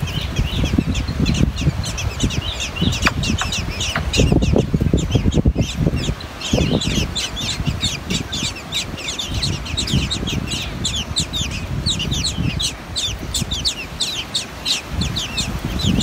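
Eurasian blackbird nestlings begging: a continuous chorus of short, high, downward-slurred chirps, several a second, as the parents feed them. Under the chirps there is a low rumbling background noise.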